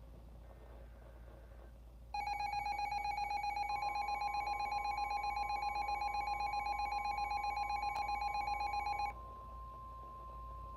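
Emergency Alert System attention signal announcing a weather alert. A loud warbling alert tone cuts in about two seconds in and stops suddenly some seven seconds later. A second, steady tone joins soon after it starts and keeps sounding once the warble has ended.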